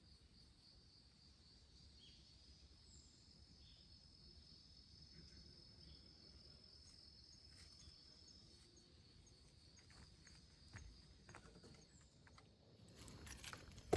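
Near silence, with a faint, steady, high-pitched trill of crickets that fades out about two-thirds of the way through. Soft scattered clicks and rustles follow and grow louder near the end.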